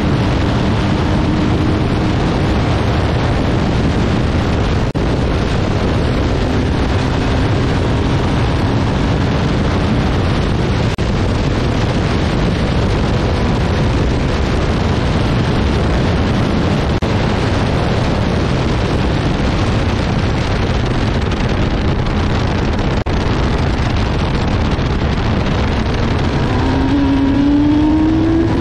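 Open-cockpit Radical race car at speed, heard from the cockpit: loud, steady wind rush with the engine note beneath it. The engine pitch climbs near the end as the car accelerates.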